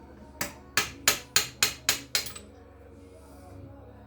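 Hammer striking metal seven times in quick succession, about three blows a second, each with a short ring, driving the connecting-rod bolts out of a 1963 Austin-Healey six-cylinder engine. The blows stop a little past halfway.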